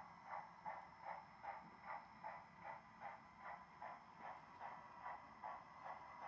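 Model C-19 steam locomotive's sound system chuffing slowly and evenly, about two and a half faint chuffs a second, as the engine creeps along.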